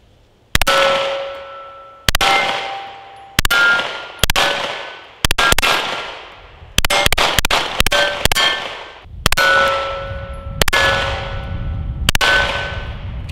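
About a dozen 9mm shots from a Sig Sauer P320 X5 competition pistol, fired at a measured pace with a quick string near the middle. Each crack is followed by a metallic clang and ringing that fades over a second or so: steel targets being hit.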